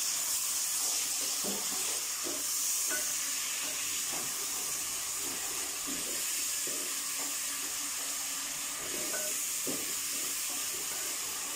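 Chopped onion frying in hot oil in a metal pot: a steady sizzling hiss, with the light scraping strokes of a wooden spoon stirring through it.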